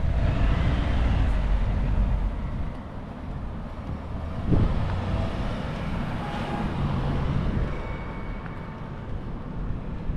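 Outdoor street ambience: a steady low rumble, heaviest in the first couple of seconds, with a short thump about four and a half seconds in.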